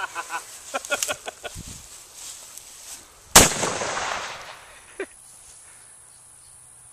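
A single gunshot about halfway through, a sharp crack with a short echoing tail. Faint voices talk in the first second and a half, and a short tick sounds about a second and a half after the shot.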